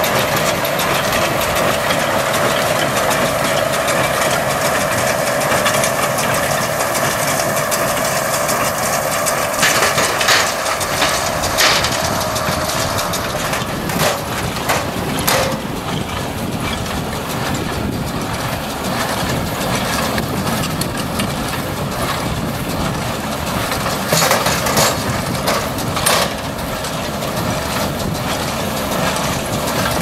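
A John Deere 6110 tractor pulling an International Harvester 440 small square baler and a McConnel bale packer while baling straw: a steady machinery drone with a constant whine, broken by sharp clanks from the baler and packer mechanisms around ten to fifteen seconds in and again about twenty-four to twenty-six seconds in.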